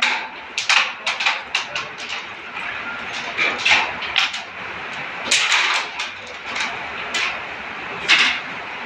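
Sharp, irregular clicks and clacks of carrom pieces, the striker and wooden coins knocking on the board. A quick run of clicks comes about a second in, with scattered single clicks after it; the loudest fall a little past the middle and near the end.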